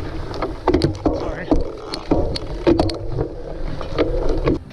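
Wind buffeting the microphone while a cyclocross bike rattles and knocks over rough ground, with frequent sharp jolts. The sound cuts off abruptly near the end.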